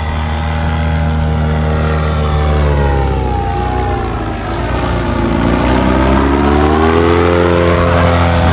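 Paramotor engine and propeller droning as the powered paraglider flies low past, its pitch falling as it draws away about three to four seconds in, then rising again as it swings back close.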